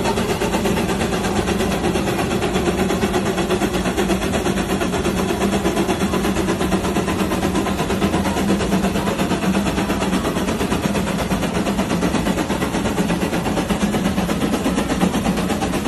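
Case steam traction engine under full pulling load, its exhaust beating in rapid, unbroken chuffs that run together into a steady, machine-gun-like rattle.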